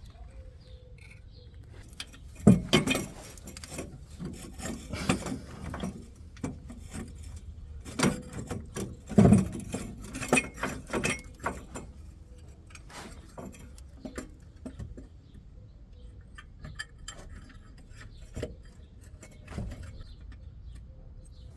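Hand tools and metal parts clinking, scraping and knocking in irregular bursts while a replacement turbocharger is being fitted to a BMW M57 diesel engine. The two loudest knocks come about two and a half seconds in and about nine seconds in, with lighter clicks and rubbing after them.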